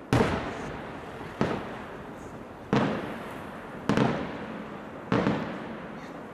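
Aerial firework shells bursting: five sharp reports at an even pace, about one and a quarter seconds apart, each trailing off in a fading echo.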